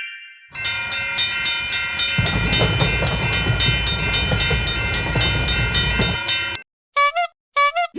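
Railroad crossing bell ringing rapidly. About two seconds in, a passing train joins it with a low rumble and the clickety-clack of its wheels. Both stop abruptly near the end, followed by a few short cartoon sound effects.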